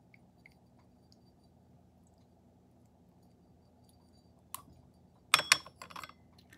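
Teaware clinking together: a light click about four and a half seconds in, then a quick run of sharp clinks with a brief ring near the end.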